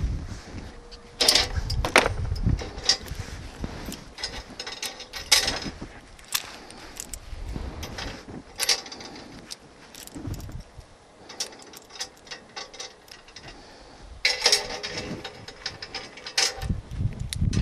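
Stick welding of stainless-steel rods with a SUZUKID IMAX80 arc welder: the arc crackles in short, irregular bursts of sharp snaps, with a longer run of dense crackling near the end.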